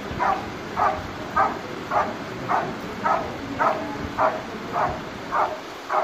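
German Shepherd barking in a steady rhythm at a helper in a blind, a little under two barks a second. This is the bark-and-hold of a Schutzhund protection routine.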